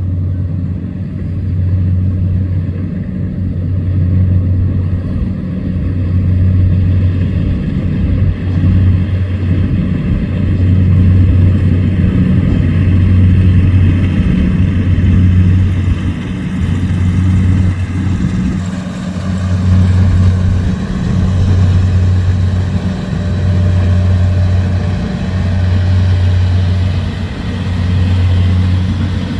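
Rice combine harvester running under load, a loud low engine drone that swells and dips every second or two.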